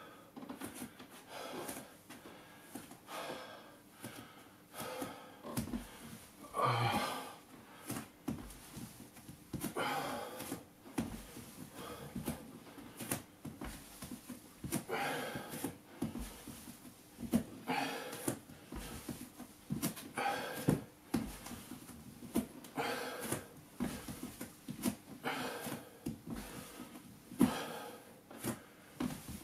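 A man breathing hard through a set of squats, with a noisy breath about every one and a half to two seconds.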